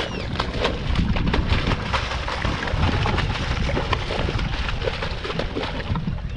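Wind rumbling on the microphone out on the water, with scattered knocks and splashes throughout.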